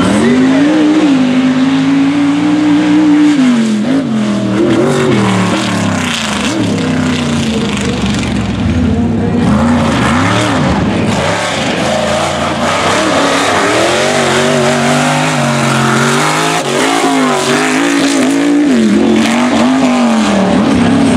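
Mega truck engines revving hard at wide-open throttle as the trucks race across dirt, the engine pitch climbing and dropping again and again.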